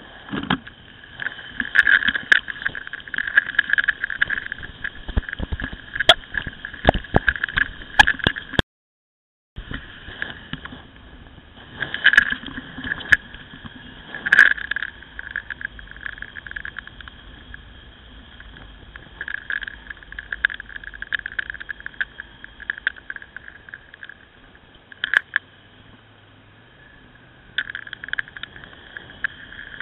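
Onboard sound of a Ducati Scrambler motorcycle being ridden, picked up by a camera mounted on the bike: a steady running drone with frequent short knocks and rattles, and a full dropout of about a second around nine seconds in.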